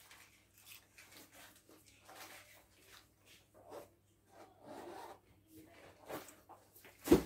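Faint, scattered rustling and rubbing, with one sharp knock about seven seconds in.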